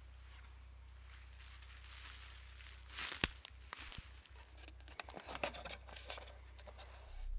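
Footsteps on dry forest-floor litter and rustling clothing close to the microphone, starting about three seconds in, with a few sharp cracks among the crackling, as a person walks past.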